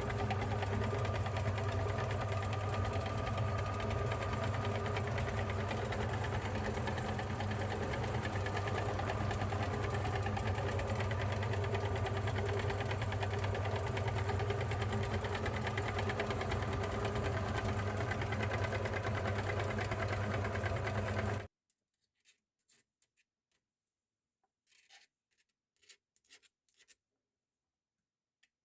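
Electric meat grinder motor running steadily with a low hum, cutting off suddenly about three quarters of the way through; afterwards only a few faint clicks.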